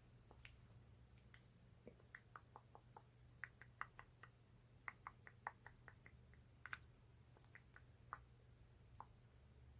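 Faint, quick tapping and clicking of fingernails on a lip gloss tube and its lid, irregular, several clicks a second and busiest in the middle, over a low steady hum.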